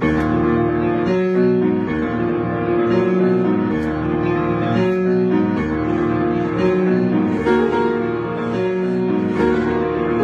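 Piano being played: a continuous passage of chords and a moving melodic line over held low notes, starting abruptly.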